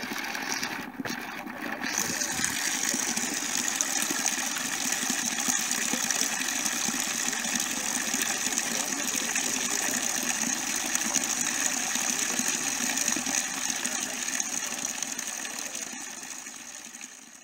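Water pouring from a fountain spout and cascading down a flight of stone steps: a steady splashing rush that fades out near the end.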